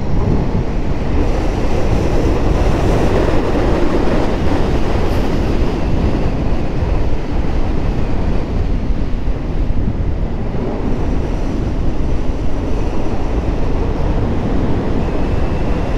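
Motorcycle riding at a steady road speed, recorded on the bike: a steady low engine-and-road rumble mixed with wind rush over the microphone.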